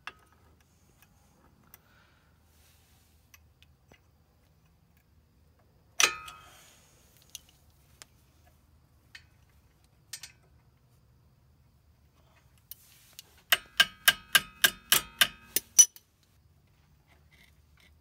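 Sharp metal-on-metal clicks from a wrench and the front brake caliper's retaining spring as it is forced into place. One ringing click comes about six seconds in, then a quick run of about ten ringing clicks near the end, about four a second.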